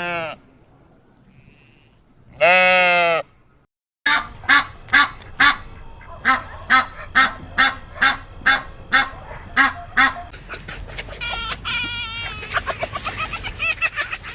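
Animal calls: two loud, drawn-out pitched cries, then after a cut a regular run of short calls about two a second, turning near the end into many overlapping calls.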